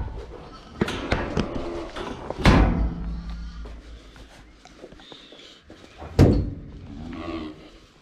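Bangs and clanks of metal lambing-pen fittings and the feed bin as feed is scooped and carried: three heavy knocks, about a second, two and a half and six seconds in, the last the loudest.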